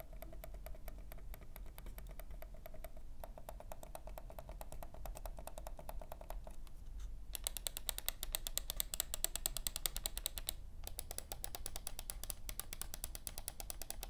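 Logitech MX Master 3S's quiet-click buttons being clicked rapidly over and over, soft and muted. About seven seconds in, the Keychron M6's traditional mouse buttons take over, clicking just as fast but louder and sharper.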